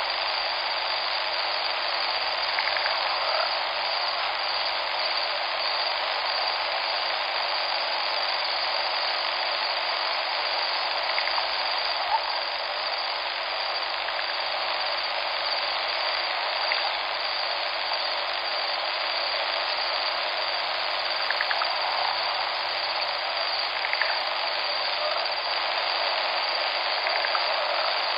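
Steady, even rush of flowing river water, with a few faint brief ticks.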